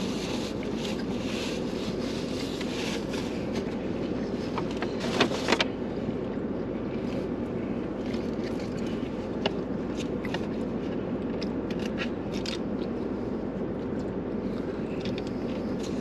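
Steady low hum inside a car's cabin, with scattered rustles, scrapes and clicks of cardboard takeout boxes, paper wrappers and plastic forks as people eat. A brief louder rustle comes about five seconds in.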